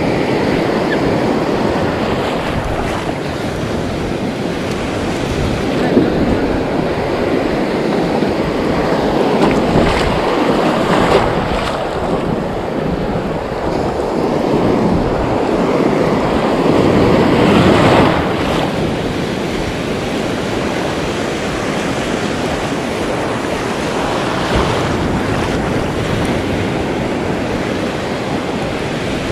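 Sea surf washing and breaking around the wader, with wind on the microphone. The wash swells and eases in surges, building to its loudest about two-thirds of the way through and then dropping back.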